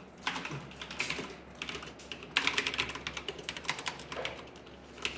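Typing on an ASUS ROG Strix Scope TKL mechanical keyboard with Cherry MX switches: a quick, uneven run of key clicks, busiest about two and a half seconds in.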